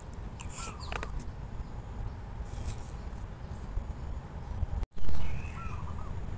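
Small birds chirping now and then over a faint steady high insect hum and low rumble. Just before five seconds the sound drops out briefly, followed by a loud short thump as the phone is handled.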